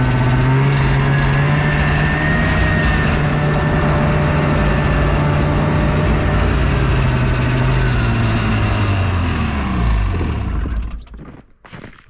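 Snowmobile engine running steadily as it travels across the ice. Near the end the engine pitch drops as it slows, and it stops about eleven seconds in.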